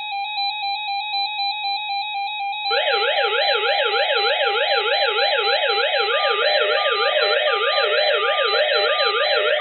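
Weather radios sounding their alert alarms for a Child Abduction Emergency. A steady pulsing tone starts abruptly, and about three seconds in a siren-like tone joins it, sweeping up and down about three times a second. Near the end another beeping tone pattern joins them.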